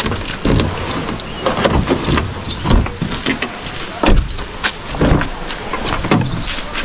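Keys jangling and clicking in the rear door lock of a Honda hatchback, then the door handle pulled and the rear door opened, a run of small clicks and knocks.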